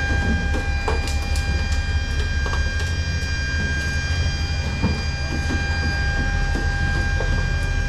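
Steady low machinery drone with a constant high whine, the running noise inside a large cargo aircraft's hold, with a few scattered metallic knocks as soldiers work on the helicopter's weapon pylon.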